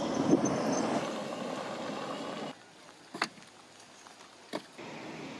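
Utility buggy driving along a path, a steady noise that cuts off about two and a half seconds in. Then two sharp knocks of split logs being stacked into a steel charcoal kiln.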